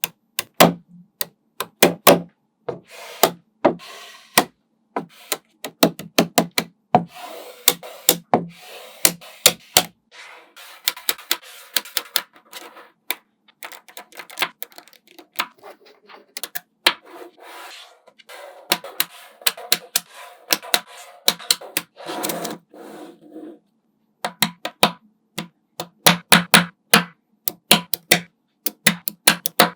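Small magnetic balls clicking sharply against each other as they are snapped into place one at a time. Through the middle stretch the clicks crowd into a continuous rattling and rubbing of many balls shifting together.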